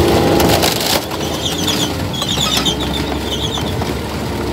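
A vehicle engine running steadily, with a string of short high squeaks through the middle.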